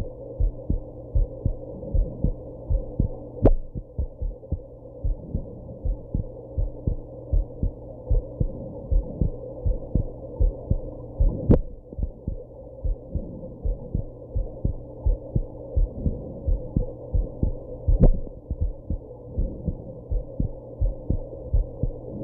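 A woman's heartbeat heard close up, a steady run of low lub-dub thumps. Three times, about seven seconds apart, a sharp jolt cuts across the beats: hiccups.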